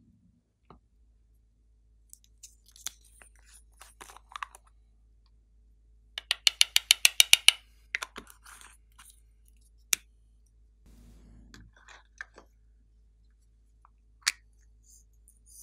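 Small plastic novelty containers being handled, opened and tapped: scattered light clicks and taps, with a quick run of about a dozen sharp taps around the middle as glitter is tapped out onto the slime, and a sharp click near the end as a yellow container's lid is opened.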